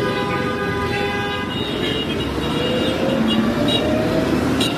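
City street traffic with a long, steady car horn blast that stops about a second and a half in, then a vehicle engine rising in pitch as it accelerates.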